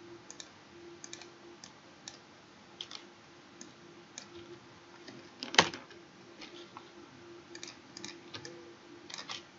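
Light, irregular clicks of a computer mouse and keyboard, with one much louder click about five and a half seconds in, over a faint steady hum.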